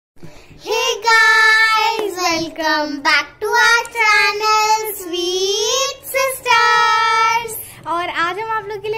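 Two young girls singing together in high child voices, a short sung phrase with several long drawn-out notes.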